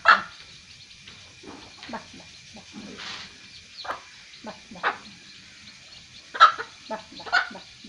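Mother hen clucking in short, irregular calls while pecking at scattered rice grains with her chicks; the loudest calls come right at the start and twice near the end.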